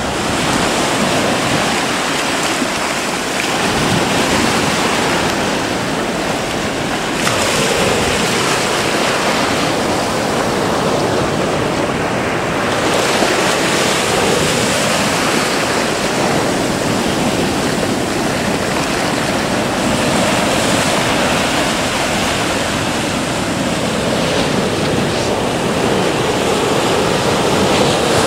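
Sea waves breaking on the shore: a continuous rush of surf that swells every few seconds as each wave crashes and foams up the beach, then eases as it washes back.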